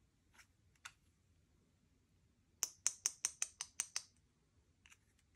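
Slime being squeezed and kneaded, giving a quick run of about nine crisp clicking pops from trapped air over a second and a half, with a few softer clicks before and after.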